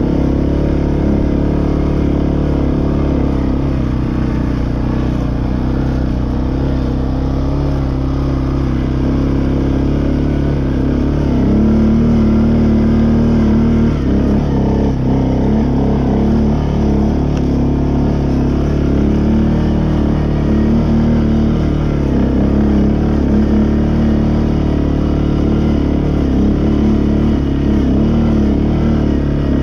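CFMoto CForce 520 ATV's single-cylinder engine running steadily under load as the quad climbs a dirt track, its pitch wavering slightly with the throttle and getting a little louder about halfway through.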